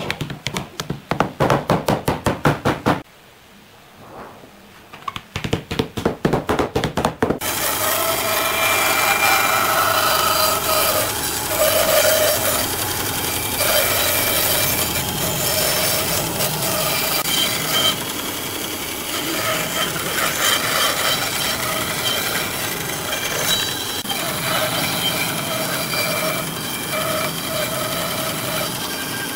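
A rapid run of sharp strikes, about six a second, in two bursts with a short pause between them. Then a power tool runs steadily against wood, with a rough, rasping sound.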